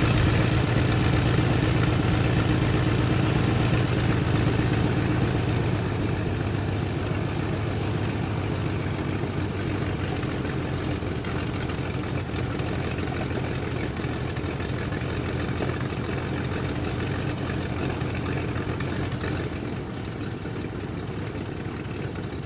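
Biplane's piston engine running at a steady idle with a rapid, even firing beat, growing gradually quieter over the stretch.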